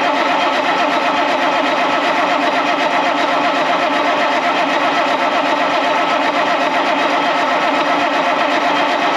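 Caterpillar diesel engine being cranked over steadily, turning but not firing. It isn't building oil pressure, so it won't start.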